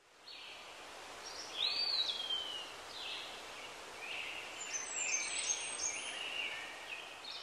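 Birds calling over a steady outdoor background hiss: one clear whistled note that rises and then slides down about a second and a half in, followed by a run of short chirps.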